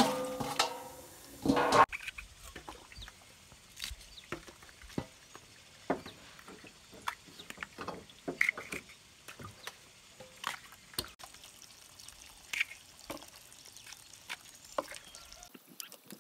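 A metal basin clanks against a large metal cooking pot twice in the first two seconds. Then comes a sparse run of small clicks and water splashes as fresh bamboo shoots are peeled with a knife and dropped into a basin of water.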